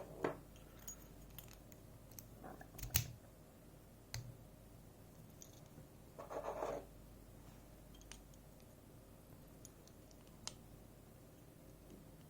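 Faint clicks and taps of small metal lock parts and tools being handled as a safe deposit lock is taken apart. A sharper click comes about three seconds in, and a brief scrape follows a few seconds later.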